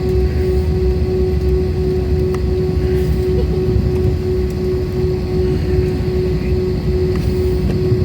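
Jet airliner engines running with a steady low rumble and a constant droning tone, unchanging throughout.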